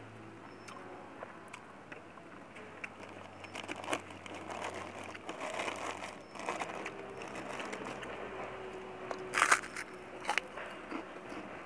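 Eating by hand from a plastic food container: small scattered clicks and rustles of fingers working rice against plastic, then a loud crunchy bite into a white cracker about nine and a half seconds in, followed by a smaller crunch a second later.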